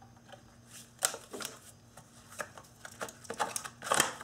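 Allen screws being worked out of a Nissan V6 engine's top cover with an Allen key, then the cover lifted off: a string of light clicks, scrapes and rattles, the loudest about four seconds in.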